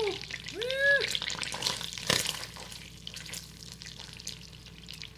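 Pieces of oxtail sizzling and crackling in melted butter in an enameled Dutch oven as they start to brown. Two short rising-and-falling tones come near the start, and a sharper crackle about two seconds in.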